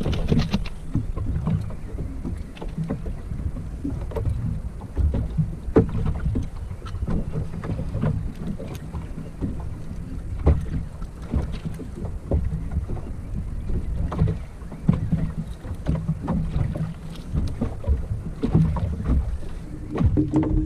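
Wind rumbling on the microphone and water slapping against a small boat's hull on a choppy sea, with scattered small knocks and clicks throughout.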